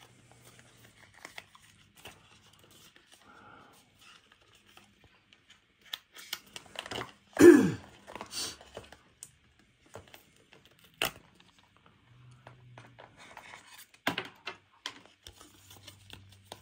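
Packaging being handled: paper and plastic rustling and tearing, with scattered small clicks and taps. About seven and a half seconds in comes one short, louder sound that falls in pitch.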